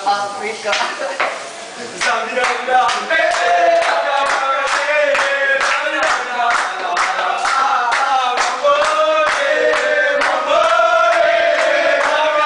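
A group of young men singing a team song together in unison, with steady rhythmic hand clapping; the singing and clapping settle in about two seconds in.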